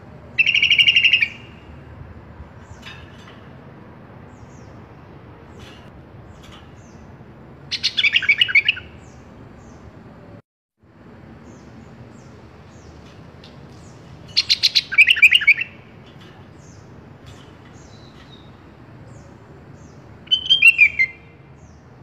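Sooty-headed bulbul (kutilang) singing: four short bursts of quick chattering notes, each about a second long and roughly six seconds apart, over a faint steady hiss.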